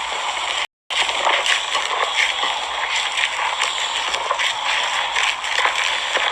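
Slime being squeezed and worked by hand: wet squelching with many small crackles and pops. The sound cuts out completely for a moment a little under a second in.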